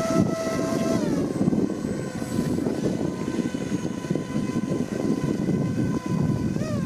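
Electric motors and air propellers of an RC rescue boat whining steadily while pushing a downed RC seaplane over water, over a rough rushing noise. The pitch drops about a second in, then briefly rises and falls again near the end as the throttle changes.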